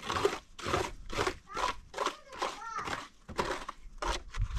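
People talking: a run of speech, with pitch rising and falling in short phrases.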